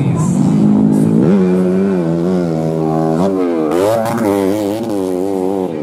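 A modified underbone racing motorcycle's engine revving hard on a dirt track, its pitch climbing about a second in, holding, then climbing again, with a brief dip near four seconds before it rises once more as the rider works the throttle.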